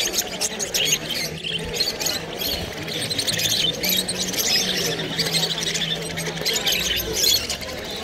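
Many caged small birds, budgerigars and Java sparrows among them, chirping and chattering at once in a dense run of short high calls. A low steady hum runs underneath for a few seconds in the middle.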